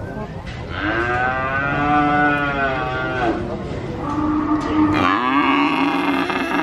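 Calf mooing: two long drawn-out moos, the first rising and then falling in pitch, the second higher and steadier, starting about four seconds in.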